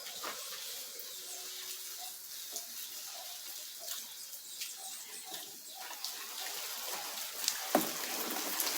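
Steady hiss of running or splashing water, with small faint chirps or ticks over it.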